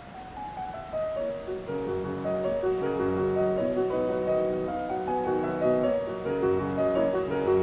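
Background piano music fading in, a flowing run of notes that builds in loudness over the first couple of seconds.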